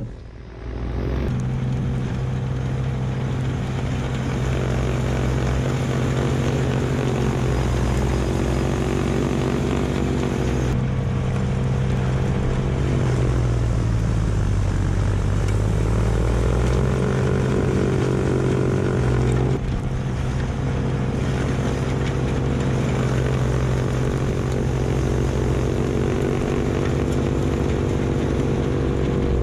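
Kubota LX2610 compact tractor's diesel engine running at steady high revs while its front-mounted snowblower throws snow. The engine pitch sags for a couple of seconds midway, then comes back up.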